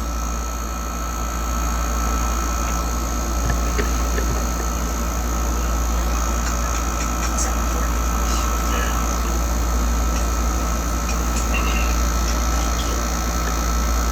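Steady low rumble and hum of a running machine, like an idling engine, with a constant thin whine and a few faint clicks.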